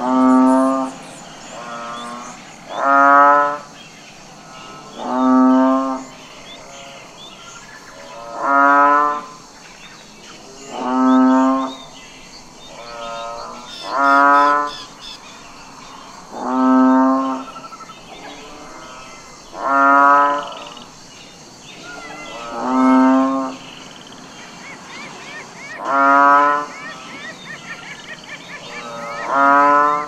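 Cattle mooing over and over, about a dozen loud calls, one every two to three seconds, each lasting about a second.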